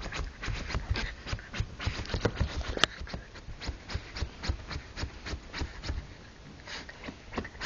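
Pekingese scratching and digging at a bed sheet: rapid scraping and rustling of fabric under its paws, with a sharp click about three seconds in.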